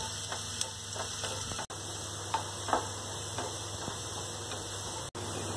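Chopped onions frying in mustard oil in a nonstick pan, a steady sizzle with irregular light taps and scrapes of a wooden spatula stirring them. The onions are being fried to light brown.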